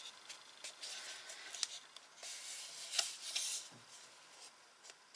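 Paper and card being handled and rubbed against each other: faint rustling swishes, two longer rubs about a second in and again from about two to nearly four seconds, with a few light clicks.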